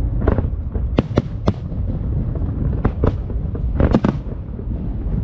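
Aerial fireworks bursting: about eight sharp bangs in quick clusters of two and three, over a steady low rumble.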